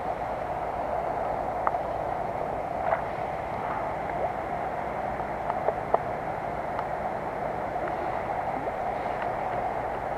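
Steady rush of water spilling down the face of a dam, with a few light clicks and knocks scattered through.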